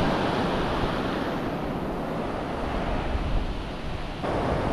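Ocean surf washing onto the beach, with wind blowing on the microphone; the sound steps up abruptly about four seconds in.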